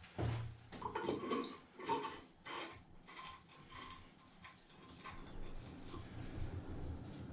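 Plastic ceiling light fixture being handled and twisted into place: a series of light clicks and short squeaks of plastic rubbing, most of them in the first couple of seconds.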